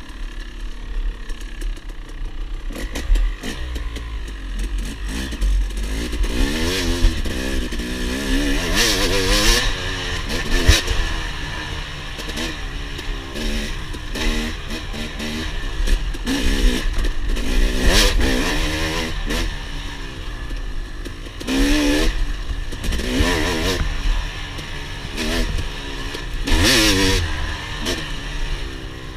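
KTM 250 XC two-stroke dirt bike engine, heard from on board, revving up and down over and over as the throttle is opened and closed through the trail's turns, with the chassis clattering over the bumps.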